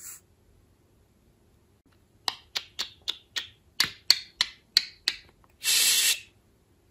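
Budgerigar making a quick run of about ten sharp clicking chirps, about three a second, starting about two seconds in, followed near the end by a short hissing burst.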